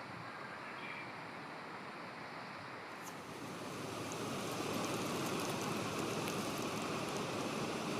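Steady rush of flowing water, with faint splashing ticks, growing louder about three seconds in.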